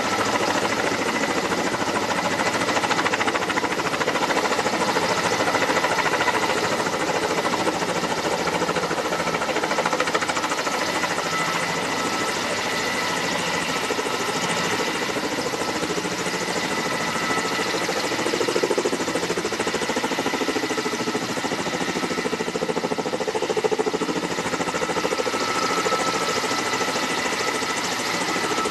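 Kamov Ka-32A11BC coaxial-rotor helicopter hovering low and close: steady rotor and turbine noise with a high, even whine running through it.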